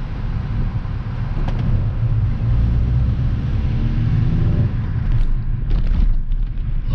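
MINI Cooper driving, heard from inside the cabin: a steady low rumble of engine and road noise, with the engine note rising for a couple of seconds. A little after halfway the engine note falls away, and a few light clicks follow.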